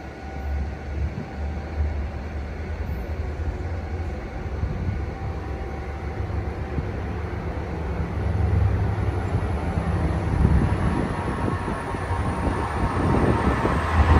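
EMD diesel locomotive hauling a commuter train approaching, its engine and wheel rumble growing steadily louder as it nears.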